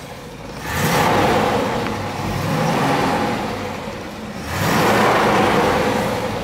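Rebuilt 350 cubic-inch Chevrolet V8 revved twice from idle, about four seconds apart, each rev rising quickly and then slowly dying back down.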